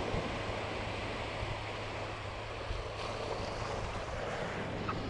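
Small surf waves breaking and washing up the sand in a steady rush, with wind buffeting the microphone.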